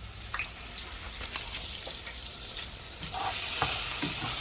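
Bacon sizzling and crackling in a frying pan, with scattered pops; the sizzle comes up much louder about three seconds in.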